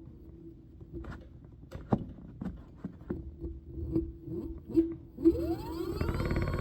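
Synergy electric scooter's motor with the throttle pulsed: a run of short clicks and knocks with brief whirs, then about five seconds in the motor whine rises in pitch and holds steady. The random grinding under pulsed throttle is a fault that the owner thinks may be something out of alignment.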